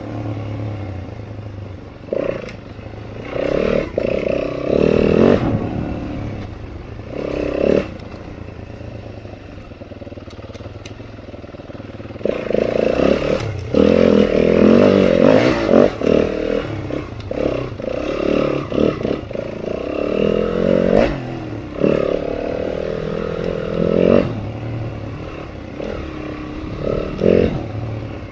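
Four-stroke single-cylinder trail dirt bike engine revving in repeated bursts as the throttle is opened and closed over rough ground, loudest about halfway through, with knocks and rattles from the bike and its load.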